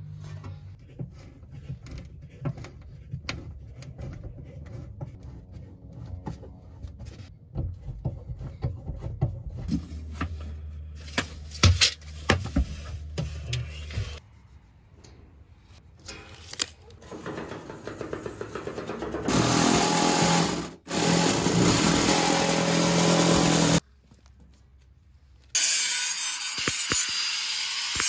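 Clicks and knocks of an aluminium diamond-plate sheet being handled, then a loud power tool running for several seconds. After a short pause, a corded angle grinder cuts into the aluminium diamond plate, a loud steady grind with a harsh high edge near the end.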